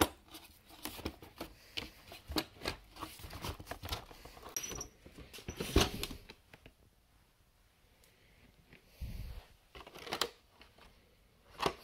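Plastic storage drawers being pulled open and the packaged toy cars inside handled: irregular plastic clicks, knocks and rustling of blister packs. A loud knock comes at the start, and there is a pause of about two seconds a little past the middle before more rustling and knocks.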